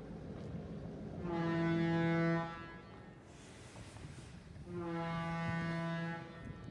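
Train horn sounding two long, steady blasts about two seconds apart, the second slightly longer.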